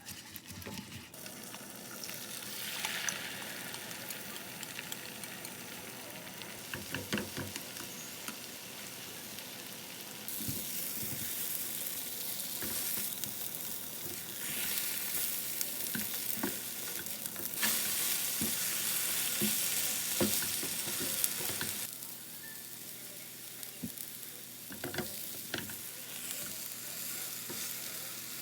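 Food sizzling in a frying pan while it is stirred, with scattered clicks and scrapes of a utensil against the pan. The sizzle jumps abruptly louder or quieter several times.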